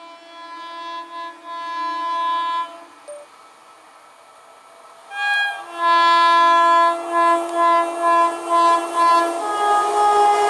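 Indian Railways locomotive air horn: one long blast, then after a short pause a second long blast broken into several short toots as the express train approaches. The rumble of the oncoming train starts to build near the end.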